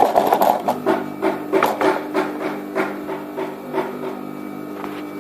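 Sewing machine stitching free-motion embroidery in slow, uneven bursts: a run of sharp needle knocks about two to three a second, loudest at the start and dying away after about four seconds, over a steady hum.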